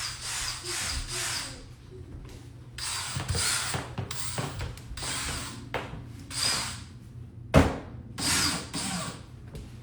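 A tool working at a nail stuck fast in a wall, in about five short scraping bursts with a sharp knock partway through; the nail will not come out.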